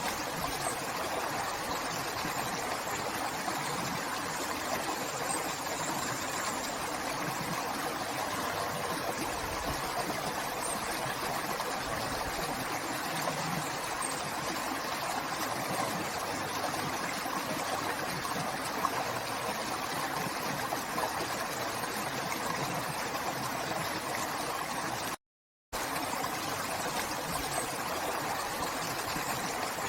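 River water flowing with a steady, even rush. The sound cuts out for about half a second roughly 25 seconds in, then resumes unchanged.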